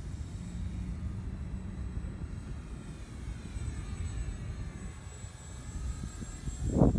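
Electric motor and propeller of a Radian XL RC glider whining faintly, the pitch bending as the plane passes overhead, over a low wind rumble on the microphone. A short loud thump near the end.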